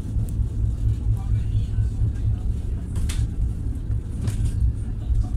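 Passenger train coach in motion, heard from inside: a steady low rumble of wheels running on the track, with two short sharper sounds about three and four seconds in.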